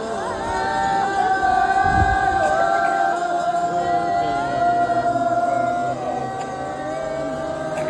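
Music of several long held notes, with a low thump about two seconds in.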